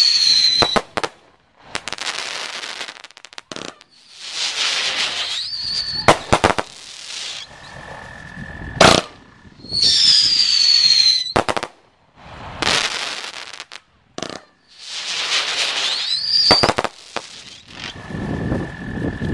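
Brothers Pyrotechnics 'Shotgun Wedding' firework firing a rapid series of shots: hissing launches and sharp cracking reports, with whistles that fall in pitch around the start and again about ten seconds in.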